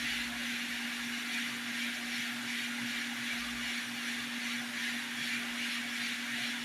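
Hot-air rework station blowing steadily, its fan giving a constant hum with an airy hiss, as it reflows solder on a circuit-board connector.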